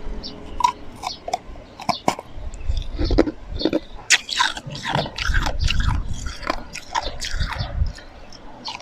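Close-miked biting and chewing of slushy ice: irregular sharp crunches and crackles, thickest in the middle seconds and thinning near the end.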